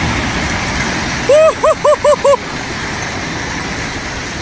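Steady vehicle engine noise, broken about a second and a half in by a quick run of five short, loud, pitched calls, each rising and falling.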